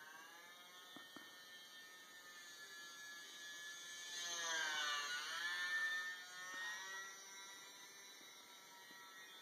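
E-flite UMX Yak 54 micro RC plane's electric motor and propeller whining in flight. It grows louder from about four seconds in, its pitch dipping and rising again, then fades back to a faint steady whine.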